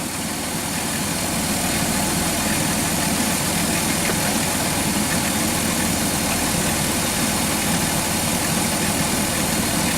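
2006 Dodge Grand Caravan's V6 engine idling steadily with the air conditioning running while the system takes on a refrigerant charge.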